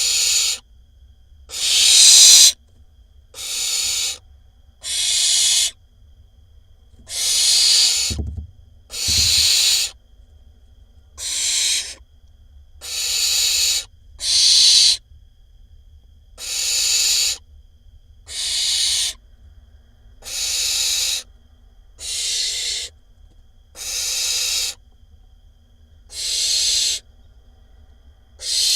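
Barn owl nestling giving its hissing 'snoring' begging call over and over, each hiss about a second long and coming roughly every one and a half to two seconds. Two dull low thuds come about eight and nine seconds in.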